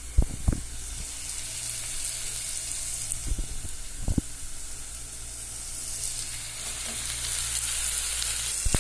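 Onion, tomato and potato frying with a steady sizzle in hot sunflower oil in a saucepan, stirred with a few sharp knocks of the spoon against the pan.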